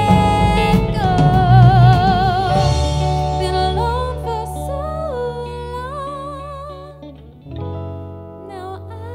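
Live band music: a female singer holds long, wavering sung notes over guitar and bass. The music grows gradually quieter, dipping briefly about seven and a half seconds in.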